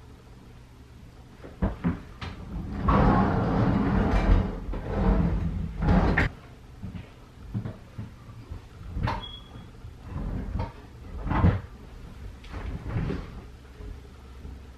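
Scattered knocks and thumps of someone moving about a small bedroom, handling things near the bed, with a longer rustle a few seconds in.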